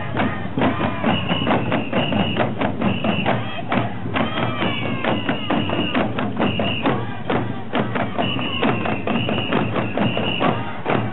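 Oeshiki procession music: rapid, dense beating on uchiwa-daiko fan drums with clanging gongs, over held high notes from a bamboo festival flute.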